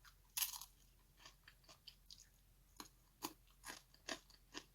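Close-up chewing of crunchy food: a short noisy crunch about half a second in, then a run of small crisp crunches that come several times a second in the second half.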